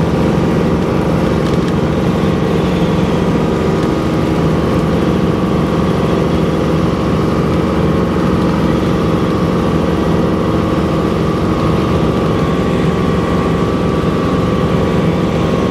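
Helicopter engine and rotor noise heard from on board in flight: a loud, steady drone with several held tones over a low rumble.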